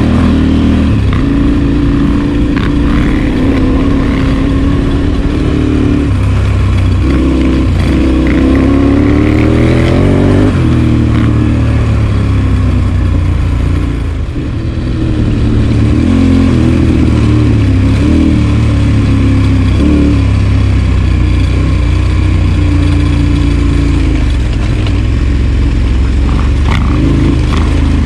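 Adventure motorcycle engine running under way, pitch climbing and dropping as it revs through the gears, easing off briefly about halfway through.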